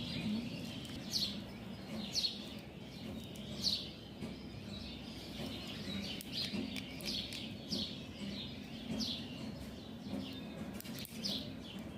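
Short high chirps, each falling in pitch, repeated about once a second over a low steady hum; the chirps sound like a small bird calling.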